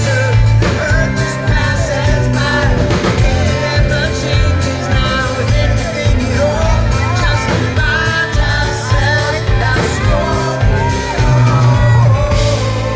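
Live rock band playing a song, with a lead singer over electric and acoustic guitars, bass and drums, recorded from the audience.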